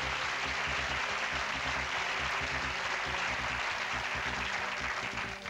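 Studio audience applauding a correct answer, over a sustained music sting; the applause fades out near the end.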